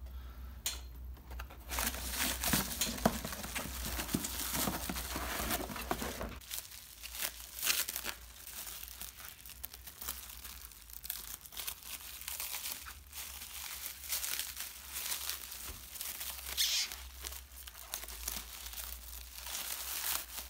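Plastic bubble wrap crinkling and rustling as it is pulled off a headlight unit. It starts about two seconds in, is dense for a few seconds, then comes in shorter bouts.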